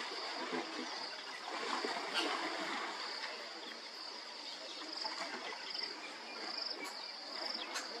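Water sloshing and splashing as two African elephants wrestle in a waterhole, under a steady high-pitched insect trill that pulses every second or so.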